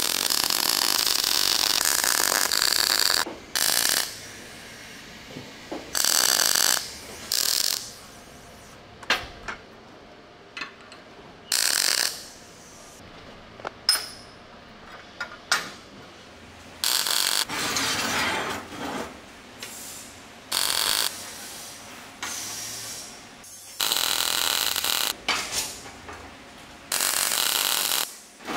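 Metal fabrication work: a power tool run in repeated bursts of one to three seconds, each starting and stopping abruptly, with sharp clicks and knocks from handling steel parts in the gaps.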